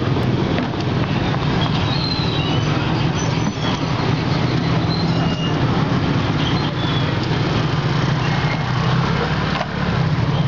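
Steady low engine drone with street noise that runs on without change.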